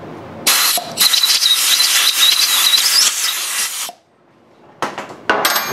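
Compressed-air blow gun blasting chips out of a freshly tapped hole in the cast-iron carriage. A short blast comes first, then a long hissing blast of about three seconds with a thin whistle in it, then two short blasts near the end.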